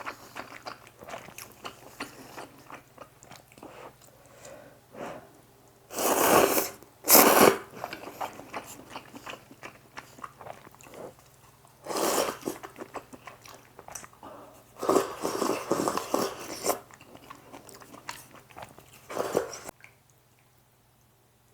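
Close-miked eating of squid jjamppong instant noodles with rice in the soup: wet chewing and small mouth clicks, with four louder, longer bursts of eating noise. The sound cuts off suddenly near the end.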